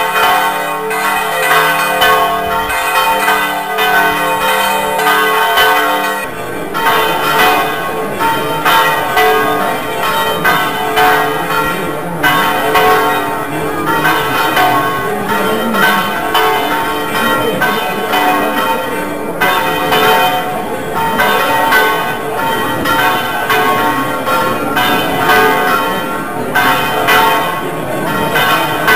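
Church bells ringing continuously, struck again and again so that their ringing tones overlap.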